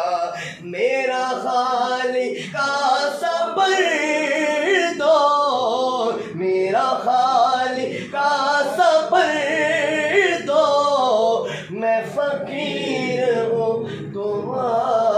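Male voices singing an Urdu devotional manqabat unaccompanied, in long drawn-out melodic phrases with brief breaths between them.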